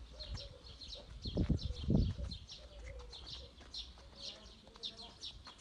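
Small birds chirping, a steady stream of short, high chirps, with two brief low rumbles about one and a half and two seconds in.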